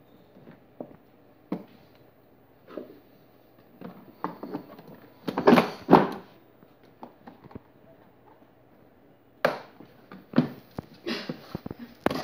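Scattered knocks and clatters of hard plastic toy-car parts being handled and fitted, loudest about halfway through as a plastic wheel is pushed onto the ride-on car's axle, with another sharp knock later on.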